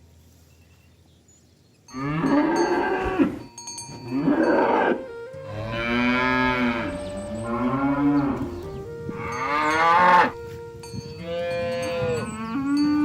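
Cattle mooing: after a near-quiet start, about six long, loud moos follow one another from about two seconds in, some overlapping as more than one animal calls.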